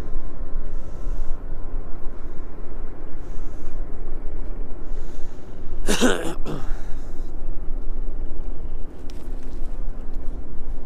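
Wind buffeting the microphone with a steady low rumble. About six seconds in comes one short, loud voice-like sound.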